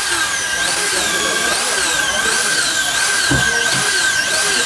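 Hand-held electric drill spinning a metal cup attachment against the valve seats of an Isuzu 4BD1 diesel cylinder head. It gives a steady high whine with a wavering squeal on top as the tool is pressed into the seats.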